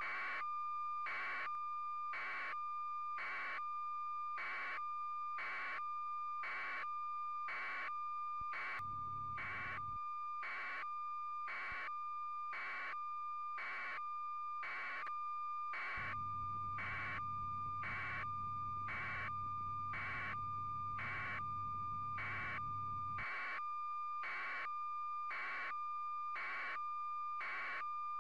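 A steady high electronic tone with a beep repeating evenly about one and a half times a second, and a low hum joining in for about a second near 9 s and again for about seven seconds in the second half.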